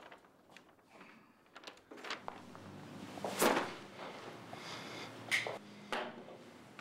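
A few sharp knocks and clunks of objects being handled, the loudest about halfway through. Near the end a small object is set down on a table.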